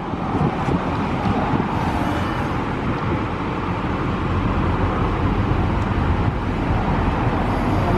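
Forklift engine running steadily as it carries a jet ski on its forks.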